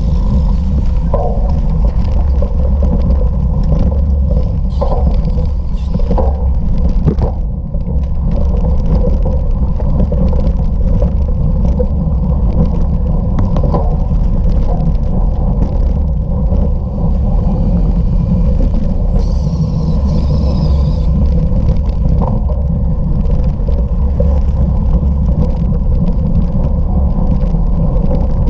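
Bicycle racing at speed: a steady, loud rumble of wind on the microphone with tyre noise, broken by a few short knocks.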